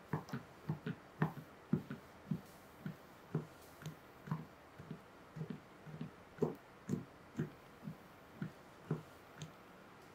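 A fork poking holes into a pressed pistachio shortbread dough base in a metal pan, about twenty soft, dull taps at roughly two a second: docking the unbaked crust.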